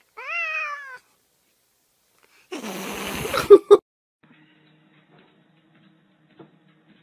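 A cat meows once, a short call that rises and then falls in pitch. About two and a half seconds in comes a loud burst of noise lasting about a second, ending in two sharp knocks. After it only a faint low hum is left.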